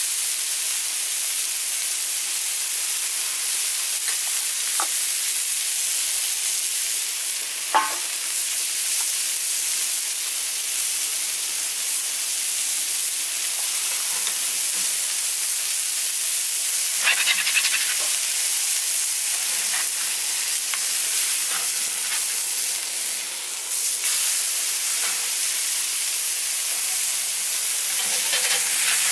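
Smashed 80/20 beef burger patties sizzling on a hot griddle plate over charcoal, a steady hiss. A sharp knock comes about eight seconds in, and short scrapes of a metal scraper against the plate come near the middle and again near the end.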